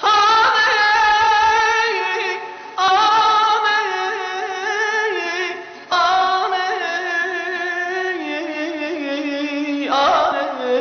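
An unaccompanied solo voice sings long, drawn-out melismatic phrases in a Middle Eastern style, each note held with a slow, wavering vibrato. A new phrase starts roughly every three seconds after a short breath.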